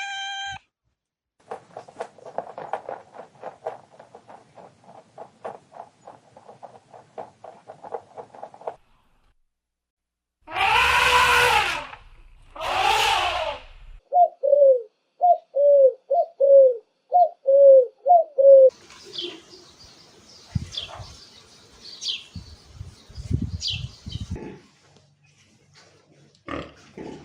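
A sequence of animal sounds. First comes a rapid run of soft clicks for about seven seconds, from a rabbit. Then an elephant trumpets twice, two loud calls of about a second and a half each, followed by pigeons cooing in about eight short falling notes, and then chirps mixed with low thumps.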